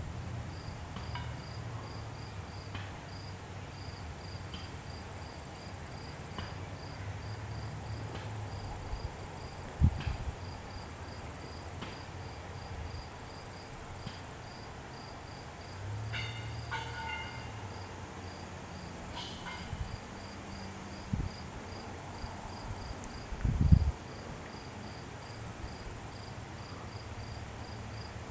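Insects chirping steadily in a high, even rhythm of about three chirps a second, over a continuous thin high hiss, with low wind rumble on the microphone. Two dull low thumps stand out, one about a third of the way in and one later.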